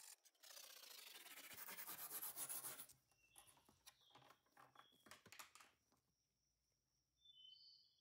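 Stiff-bristle brush scrubbing rust off a metal pocket-knife plate on a wooden board in rapid back-and-forth strokes, stopping about three seconds in. After that come softer handling noises and a few faint short high tones.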